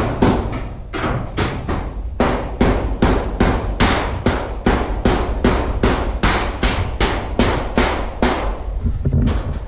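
A hammer driving nails into corrugated metal roofing sheets, in a steady run of sharp strikes about three a second, with short pauses about a second in and near the end.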